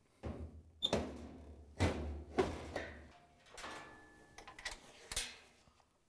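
Hinged top panel of a top-load washer being lifted open: a string of clunks and rattles over a low rumble, then fainter handling sounds as it is propped up with a strap.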